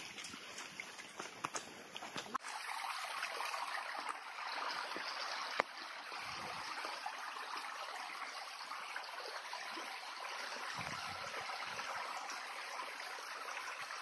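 A few scattered footsteps crunching on dry leaves and stones, then, from about two seconds in, the steady rush of a small stream running over rocks.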